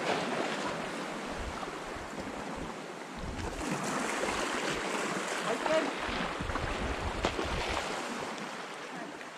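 Sea surf washing on a shingle shore, with wind buffeting the microphone. Faint voices can be heard in the background.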